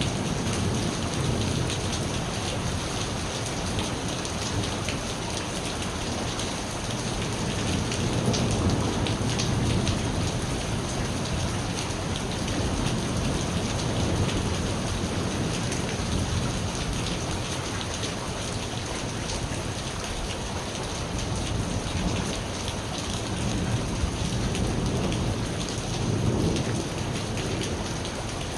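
Steady rain falling on surfaces, with low rolling thunder rumbling now and then, swelling about a third of the way in, midway and near the end.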